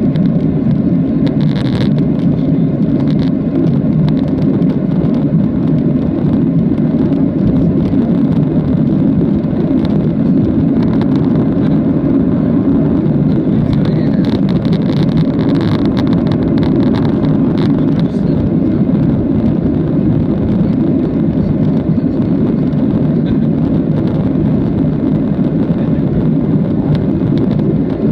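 Steady low drone inside the cabin of a Boeing 737-700, made by its CFM56-7B turbofan engines and the air rushing past the fuselage.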